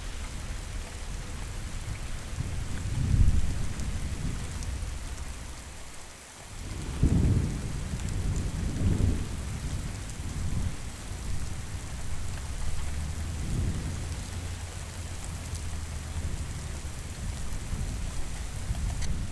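Steady rain with rolling thunder: low rumbles swell several times, the loudest about seven seconds in, over the constant hiss of the rain.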